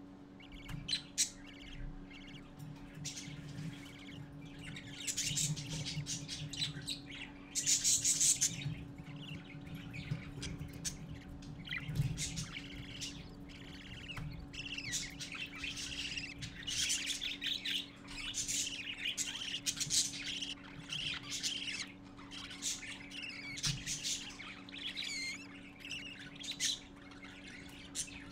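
Parakeet chicks chirping and squawking continuously in the nest box, begging as the adult feeds them, with a loud harsh squawk about 8 seconds in. A steady low hum runs underneath.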